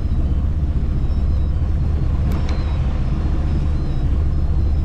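Motorboat engine running steadily with a low drone while the boat is under way.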